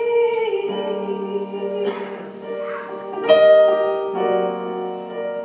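Live slow ballad: piano chords sounding under a sung note held on the word "me", with the chords changing a few times.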